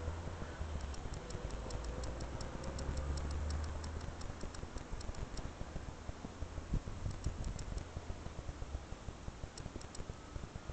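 Low wind rumble on the microphone, strongest in the first few seconds, with runs of quick, faint high ticks, about five a second, that stop and start.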